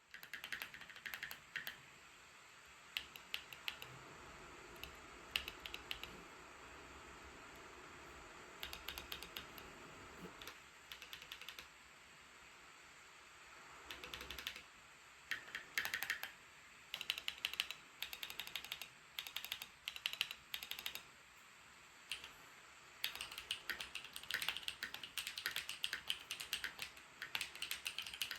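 Typing on a Keychron Q1 mechanical keyboard with Dark Jade switches, its case taped and foam-modded and its stabilizer wires relubed: runs of clacking keystrokes in bursts with short pauses. Under the keystrokes runs the steady hiss of MacBook Pro cooling fans spinning hard.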